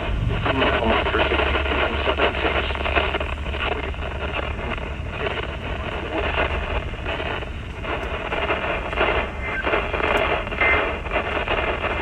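Radio receiver static: a steady, rough hiss and crackle of a weakly received broadcast, with a low hum underneath and the signal swelling and fading.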